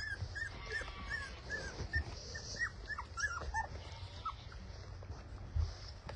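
Young goldendoodle puppies whimpering: a string of short, high whines, about three a second at first, then a few falling ones, stopping about four seconds in. A low thump near the end.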